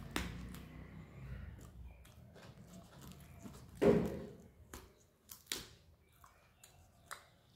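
Close-up eating sounds: rice being chewed with wet mouth clicks and smacks, and fingers mixing rice and dal on a steel plate. The loudest smack comes about four seconds in, with a few sharp clicks after it.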